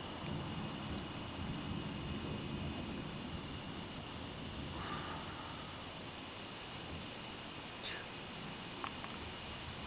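Night insects, crickets, singing in a steady high trill, with louder higher pulses every second or two.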